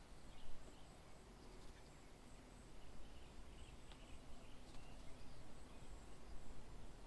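Faint garden ambience: small birds chirping here and there, over a steady high-pitched whine and a low background rumble.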